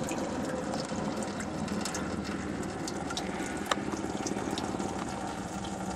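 Water running in a steady stream out of the weep hole of a newly installed water pump on a Dodge Charger's 2.7 V6 and splashing below, with the cooling system unpressurised; a single sharp click sounds a little past halfway.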